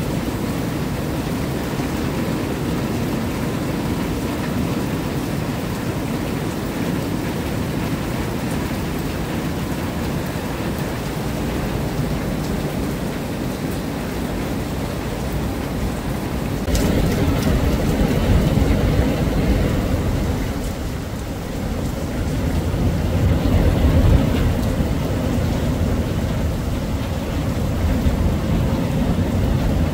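Steady heavy rain. A little over halfway through, a sudden crack is followed by a low rumble of thunder that swells and rolls on, louder than the rain.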